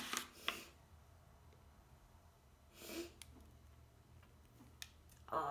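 Faint clicks and crumbles of a solid bubble bar being broken apart by hand, with a short breath about three seconds in.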